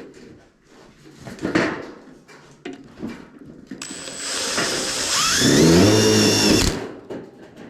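A power drill driving a screw for about three seconds, its motor whine rising in pitch as it spins up, then holding steady before it cuts off. Light knocks from handling the tools and the steel framing come before it.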